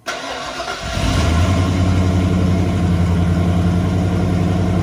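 1994 Ford Bronco's engine starting: a short stretch of cranking, catching about a second in, then settling into a steady idle.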